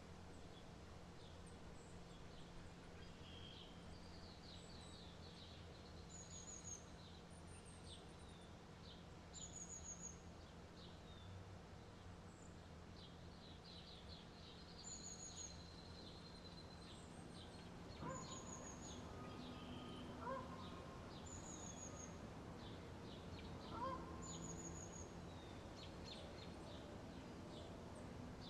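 Faint birdsong: small birds chirping, one repeating a short high trill every couple of seconds, over a steady low hum. A few louder, lower calls come in the second half.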